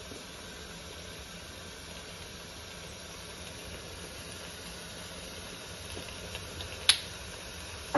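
Thick mashed-vegetable mixture sizzling gently in oil in a pot on a gas stove: a steady low hiss. A single sharp click about seven seconds in, a metal spoon tapping the pot.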